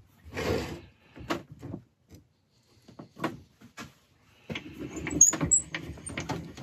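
Wood lathe tailstock being brought up and its handwheel wound to press the centre into a large bowl blank for support. A short metal scrape near the start, then scattered clicks and knocks that grow denser from about four and a half seconds in, with a few short high squeaks.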